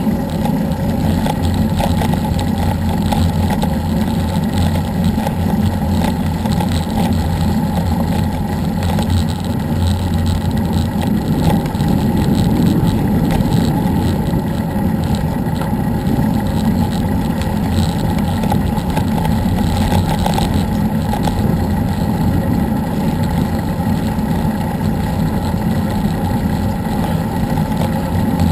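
Wind buffeting a GoPro's microphone on a moving road bike: a steady, loud, low rumble.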